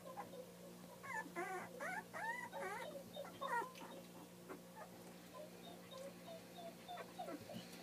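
Two-week-old pit bull puppies whimpering and squealing: a run of wavering cries from about a second in to nearly four seconds, then a few fainter squeaks near the end.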